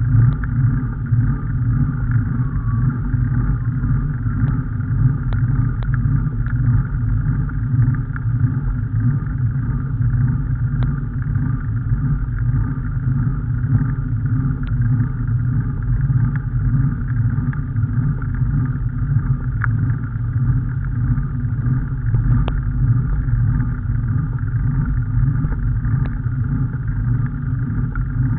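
Steady low rumble of a vehicle in motion, picked up by an onboard camera, with scattered faint ticks.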